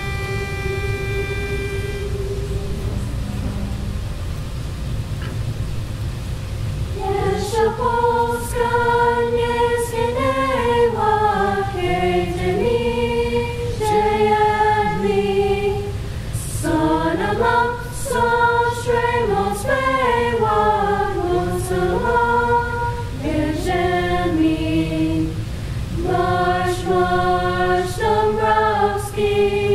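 High school a cappella choir of mixed voices singing a national anthem in several-part harmony, led by a conductor. A single steady pitch note sounds for the first two seconds, then a soft held tone, and the full singing comes in about seven seconds in, with short breaths between phrases.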